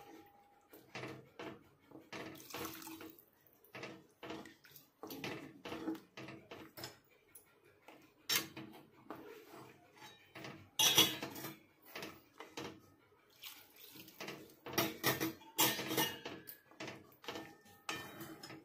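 Wooden spatula stirring thin mutton gravy in a steel kadhai: irregular knocks and scrapes against the pan with liquid sloshing. The loudest knocks come about eleven seconds in and again around fifteen to sixteen seconds.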